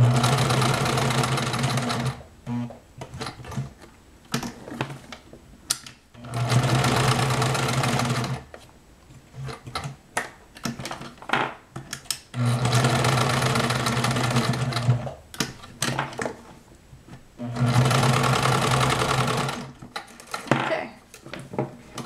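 Domestic sewing machine stitching through nylon webbing in four steady runs of about two seconds each, with short pauses and small clicks between them. The four runs are the across, diagonal, across, diagonal legs of an hourglass reinforcing stitch.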